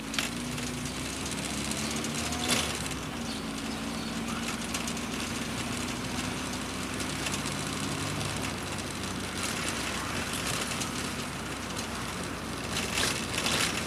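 Engine and road noise inside the cabin of a VW Voyage with its AP four-cylinder engine, driving at steady speed, the engine note shifting a little now and then. A single knock about two and a half seconds in.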